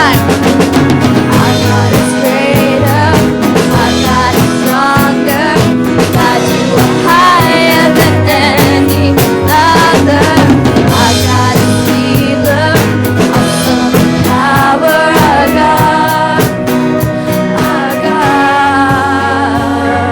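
Band music with a drum kit keeping a steady beat of snare and bass drum under a bending lead melody.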